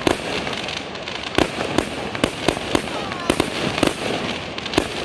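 Fireworks display: a rapid string of sharp bangs from bursting shells, several a second, over continuous crackling, with a brief whistle about three seconds in.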